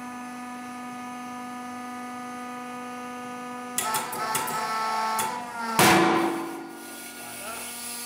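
A hydraulic press's pump hums steadily, then strains harder with some ticking as the ram loads up on the interference-fit bush. A loud sharp crack about six seconds in, with a short metallic ring dying away after it, is the bush breaking free of the housing's bore.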